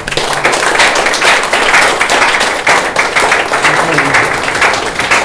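Audience applauding, a dense patter of many hands clapping, with a few voices talking beneath it.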